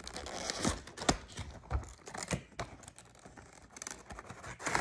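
Cardboard packaging being handled and pulled open: irregular taps, knocks and scrapes with rustling between them, the sharpest knock about a second in.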